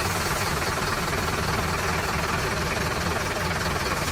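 A motor running steadily: an even low rumble with hiss.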